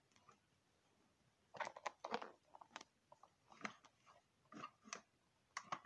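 Faint clicks and rustles of small plastic toy figures being handled and set down on a wooden floor, in short irregular clusters after a quiet first second and a half.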